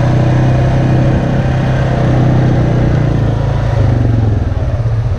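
Single-cylinder four-stroke ATV engine running steadily at low speed. Near the end it eases off toward idle, so the exhaust breaks into separate pulses.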